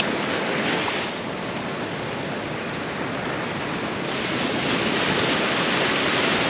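Ocean surf washing in over the shallows, a steady rushing wash that swells louder over the last couple of seconds.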